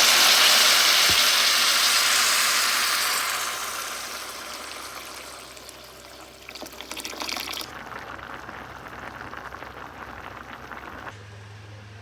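Water running from a kitchen tap as a steady hiss that fades away over the first few seconds, followed by quieter rustling and clatter. Near the end a low steady hum takes over.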